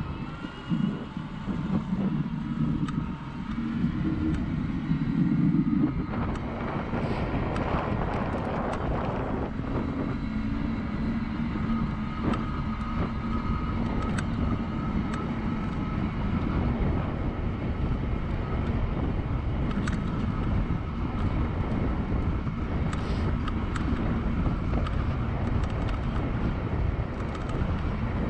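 E-cargo bike riding at speed on smooth tarmac: the electric assist motor whines, rising in pitch at the start and then holding a steady hum, over constant tyre and wind noise, with scattered clicks and rattles.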